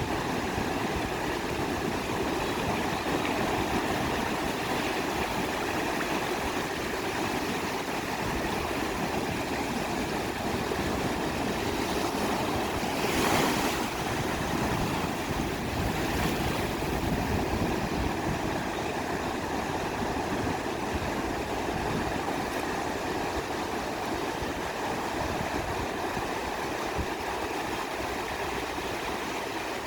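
Ocean surf washing steadily onto a beach, with a wave breaking louder about 13 seconds in and a smaller one a few seconds later.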